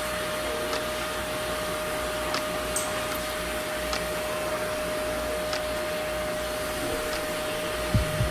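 Hose-fed pet grooming dryer blowing air through its nozzle onto a wet cat's coat: a steady rushing hiss with a steady whine from the motor. A low knock near the end.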